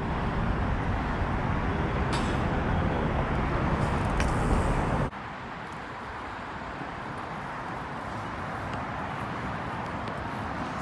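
Steady rushing street noise of traffic and wind while riding a BMX bike along city streets. It is louder for about the first five seconds, then drops suddenly to a quieter steady rush.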